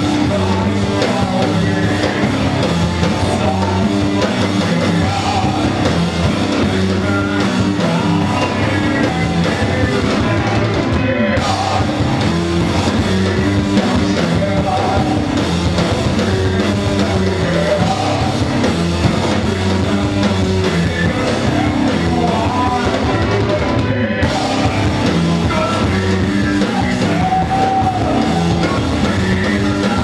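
Live rock band playing loud and continuously: electric guitars, bass and a drum kit, with singing.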